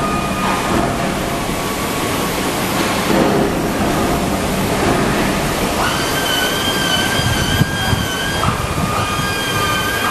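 Power tools running in a metalworking shop: a loud, steady rushing noise, joined about six seconds in by a high, steady whine that breaks briefly twice.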